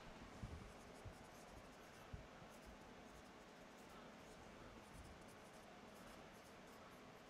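Faint squeaks and scratches of a marker writing on a whiteboard, in a series of short strokes.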